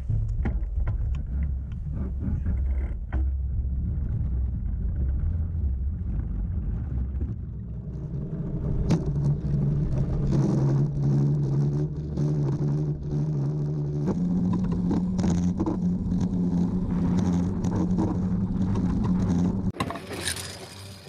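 Homemade rail bike rolling along steel railroad rails, heard close up from its outrigger arm. It makes a steady rumble full of clicks and knocks, and a humming tone comes in partway through and steps higher about two-thirds of the way in. The sound drops away near the end.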